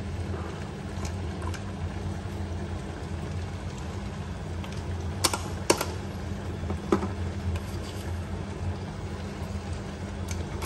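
Steady low kitchen hum, with two sharp clicks about halfway through and a third a second later.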